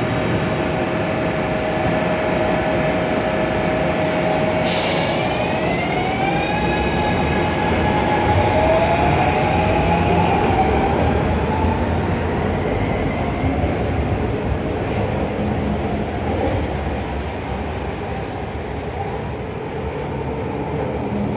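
SEPTA Market-Frankford Line M-4 elevated train pulling out and accelerating. Its electric propulsion whine steps up in pitch over several seconds, over the steady rumble of wheels on the track, with a brief hiss about five seconds in. The whine then fades as the cars pass and leave.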